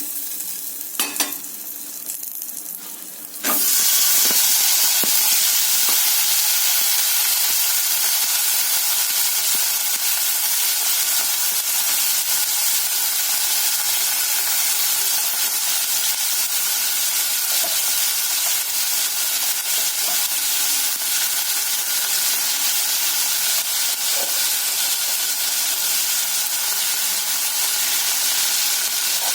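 Pumpkin pieces frying in oil in a pan: a few clicks of a utensil against the pan, then about three seconds in the sizzling jumps suddenly louder and carries on as a steady hiss.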